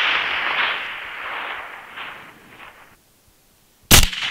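The long rolling echo of a rifle shot, fading out about three seconds in. A second rifle shot cracks near the end, and its echo begins to roll.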